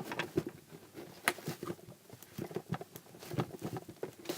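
Soft butter slime being stretched and squished by hand, making irregular small sticky clicks and pops, with one sharper pop about a second in.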